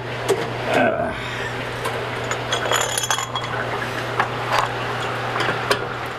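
Wrenches being handled during a gas-line job, with scattered metal clinks and knocks. A steady low hum runs underneath.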